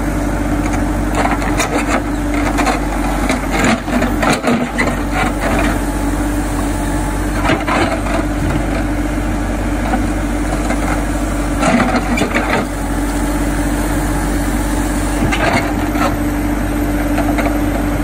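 Hidromek 102S backhoe loader's diesel engine running steadily while its backhoe bucket scrapes and digs into soil, with irregular crunching scrapes of dirt and stones every few seconds.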